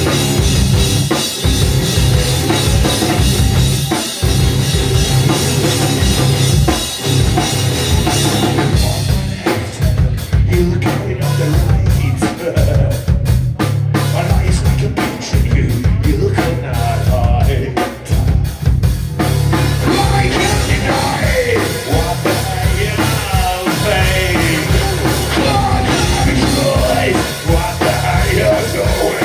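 Live heavy metal band playing: distorted electric guitars, bass and a pounding drum kit. About nine seconds in, the dense, cymbal-heavy sound breaks into choppier stop-start playing, and a singer comes in around twenty seconds in.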